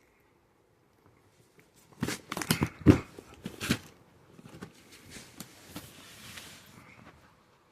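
Box packaging being handled while unboxing: a burst of loud crackles and knocks about two seconds in, then softer rustling that dies away near the end.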